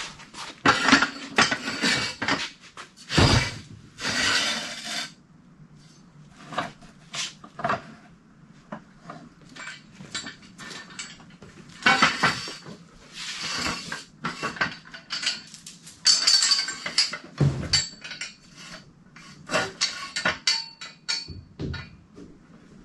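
Steel boat jack stands clanking and rattling as they are carried, unfolded and set down under a sailboat hull, in repeated bursts of metal-on-metal clatter and knocks.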